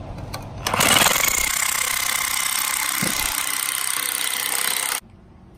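Cordless impact wrench hammering steadily on the forcing screw of a bearing removal tool, trying to push a pressed-in front wheel bearing out of its steering knuckle; the bearing will not budge. It starts about a second in and cuts off suddenly after about four seconds.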